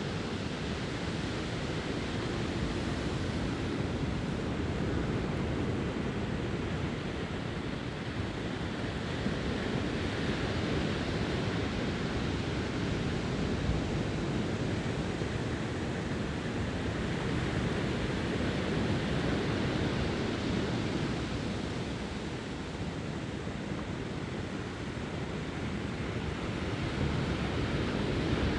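Ocean surf breaking and washing up onto a beach: a continuous rush of water that slowly swells and eases every several seconds.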